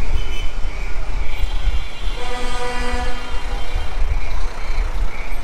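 Busy city street noise with a heavy, uneven low rumble. A horn-like tone sounds for about a second midway.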